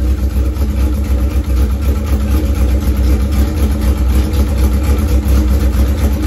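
Old Honda inline-four motorcycle engine idling steadily.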